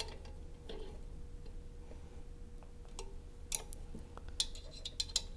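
Irregular light metallic clicks and ticks from an M5 Allen wrench working the captive screws on the analyzer's mounting flange as they are tightened.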